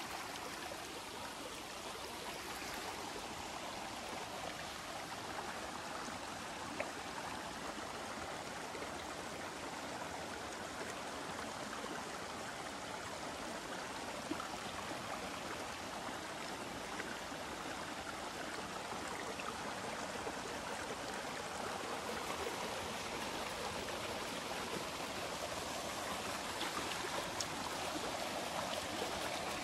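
Shallow mountain stream running steadily over rocks and small cascades, a little louder near the end, with two faint clicks.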